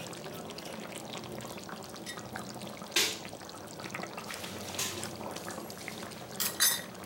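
Chicken curry gravy simmering in an open pan, a steady low hiss, as a spoonful of rose water is poured in. A brief sharp sound about three seconds in, with a few softer ones later.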